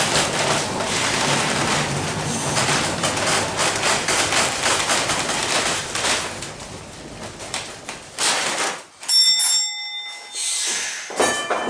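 Vintage 1906 John Stephenson streetcar rolling along the rails with a steady rumble and clatter that drops away about eight seconds in. A bell then rings briefly, with a second short ring near the end.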